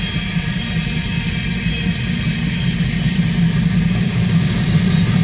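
Freight cars rolling past on the track: a steady rumble of steel wheels on rail.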